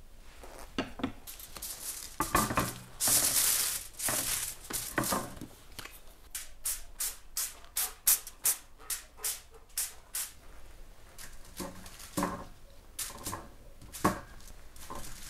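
Kitchen handling on a foil-lined tray: a burst of foil crinkling about three seconds in, then a run of quick shakes, about three a second, as a small bottle is shaken over the foil. Near the end come soft taps as fruit slices are laid on the foil.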